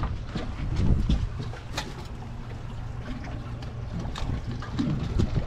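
Wind buffeting the microphone over water lapping against a small boat, with scattered light knocks.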